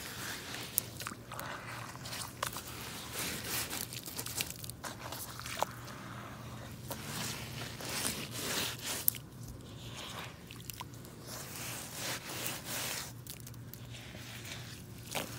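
Muck boots squelching and sloshing through a muddy puddle: irregular wet, sucking mud sounds and splashes, with a few sharp clicks.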